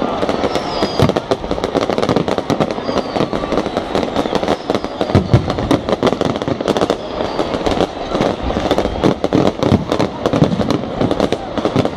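Fireworks display going off continuously: many overlapping bangs and crackles in quick succession, with a few faint whistles.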